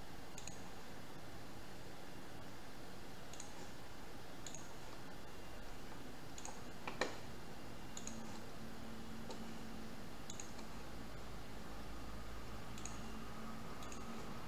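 Computer mouse clicking now and then, about nine single clicks, the loudest about seven seconds in, over a steady low hiss.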